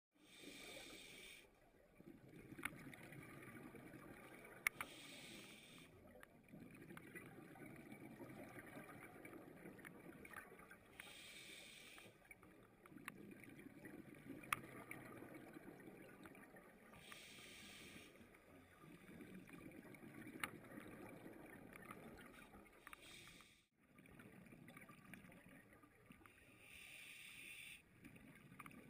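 Scuba diver breathing through a regulator underwater: a short hiss roughly every six seconds alternates with longer stretches of low bubbling rumble, with a few sharp clicks in between.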